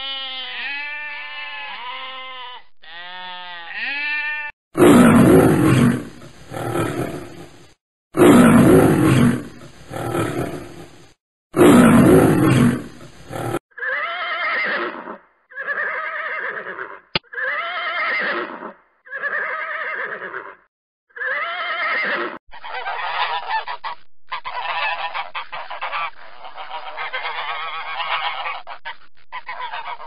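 Sheep bleating in the first few seconds, then three loud, harsh calls, then a series of five evenly spaced horse whinnies. From about two-thirds of the way in to the end, black swans call in a dense, continuous run of honks.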